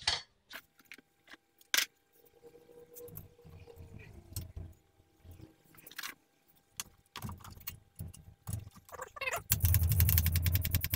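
Clicks, knocks and clattering of tools and parts being handled at a workbench while a cooling-system pressure tester is fetched and fitted, ending in about a second and a half of loud, fast rattling.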